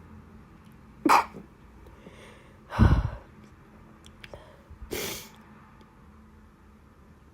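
A woman sneezing, three short sneezes about two seconds apart, the middle one loudest.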